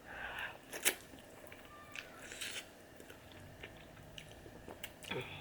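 A person chewing a mouthful of spicy instant ramen noodles, quiet wet mouth sounds with scattered faint clicks.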